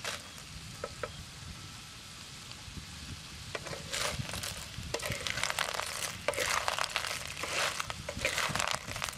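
Small shellfish in their shells stir-frying in a pan on a portable gas stove: a steady sizzle, with shells clattering and a spatula scraping the pan as they are stirred, busier from about four seconds in.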